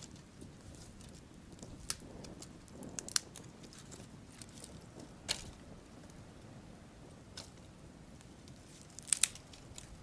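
Small wood campfire crackling, with a few sharp pops, two close together about three seconds in and again near the end, and a rustle of dry branches being handled by the fire.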